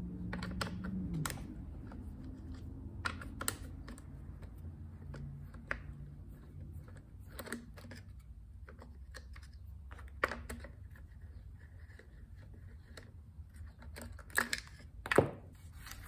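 Nut driver unscrewing the 8 mm nuts that hold a string trimmer's air filter base: scattered light metallic clicks and ticks, with a few louder clacks near the end.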